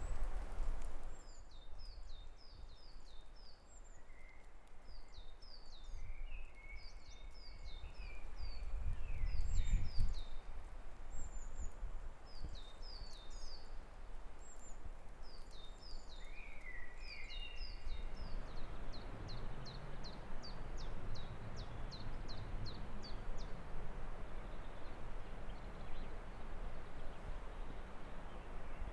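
Songbirds singing in short, high, chirping phrases, one ending in a fast, even run of about a dozen notes two-thirds of the way in. Under them is a low wind rumble that swells about a third of the way in, and a steady rushing noise that sets in a little past halfway.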